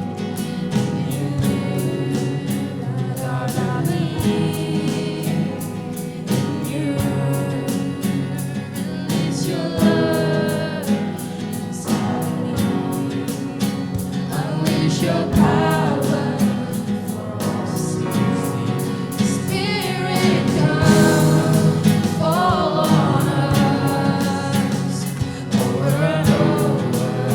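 Live worship music: a group of singers backed by a band with a steady drum beat. A lead voice slides through melismatic runs in places.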